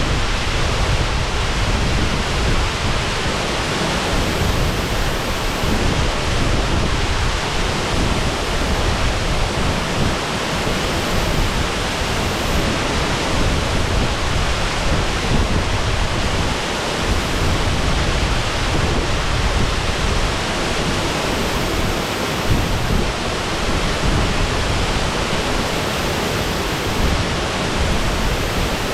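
Shasui Falls pouring steadily: a loud, even rush of falling water with a deep low rumble.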